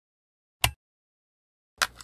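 A single sharp switch click, with a brief ring, about half a second in as a work lamp comes on, against dead silence. Near the end, plastic clicks and clatter begin as a portable cassette player is picked up and handled.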